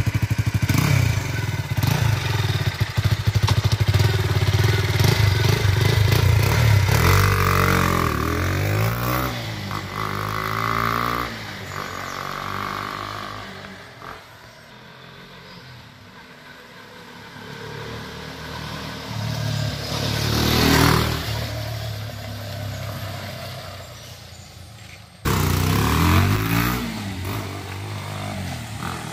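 KTM RC 200's single-cylinder engine through an RC 390 BS4 stock full-system exhaust. It runs loud and steady at first, then rises in pitch in several pulls as the bike rides off through the gears, and fades away. It swells again to a loud peak as the bike passes close by, and after a sudden jump near the end it accelerates again.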